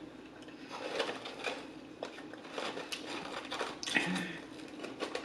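Close-up chewing and crunching of extra crispy fried chicken, a run of irregular crackles, clicks and mouth smacks. A brief closed-mouth hum comes about four seconds in.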